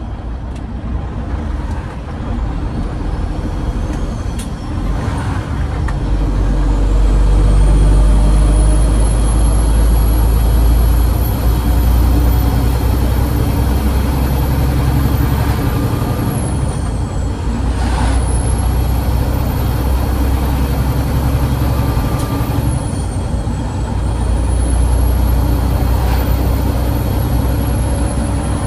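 Peterbilt 389's diesel engine pulling under a heavy load, a low drone that grows louder a few seconds in. Over it a high turbo whistle climbs and holds, drops away twice and climbs back, as at gear changes.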